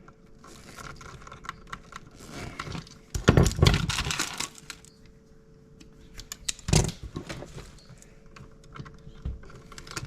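Hand tools and stiff copper house wiring being worked while the hot wires are pigtailed: small metallic clicks and rattles, a dense burst of handling about three seconds in, and a single sharp snap near seven seconds.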